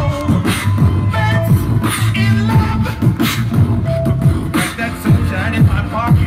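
Live vocal performance through a concert PA: beatboxed kick and snare sounds into a handheld microphone at a steady beat over a held bass line, with sung vocal lines on top.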